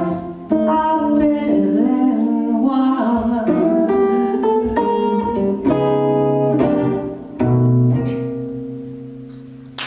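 Live jazz singer and guitar closing out the song: a few last sung phrases over guitar chords, then a final chord held and left to ring out and fade.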